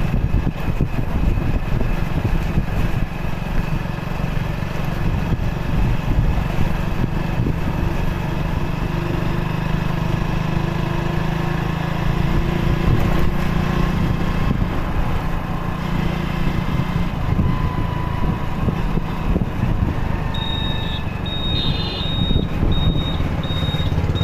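Motorcycle engine running steadily under way, with wind rumbling on the microphone. Near the end a high electronic beep repeats about twice a second.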